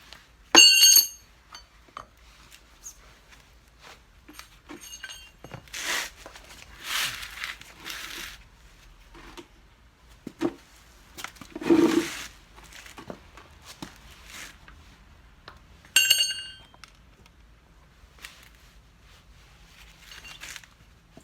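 Metal tools clinking with a short ringing note, once near the start and again about 16 seconds in, with scraping and rubbing sounds in between, as work goes on changing a rear cart's tyre.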